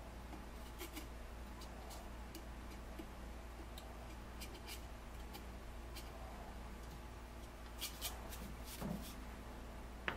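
High-speed dental-style piercing handpiece cutting triangular openings through the thin wall of a hollowed maple vase: faint scratchy cutting with scattered light clicks, a few louder ones near the end, over a steady low hum.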